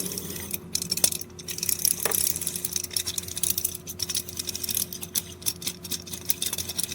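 Rapid small metallic clicks and scraping as a large bolt is screwed by its threads into the back of a kinetic wall sculpture's base, a tight fit.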